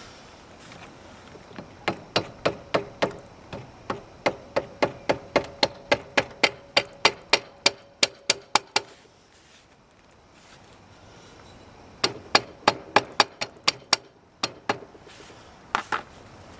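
Hand socket ratchet clicking in an even run of about four clicks a second, each with a short metallic ring, then pausing and clicking again in a shorter run, as a bolt is turned with an 8 or 10 mm socket.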